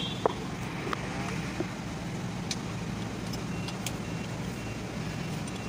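Steady low hum of a running motor vehicle engine, with a few light clicks.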